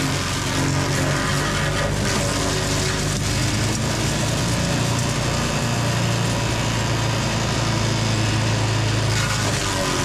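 ECHO Bear Cat SC3306 chipper-shredder engine running steadily at working speed, with the crackle of small branches being chipped in its first few seconds.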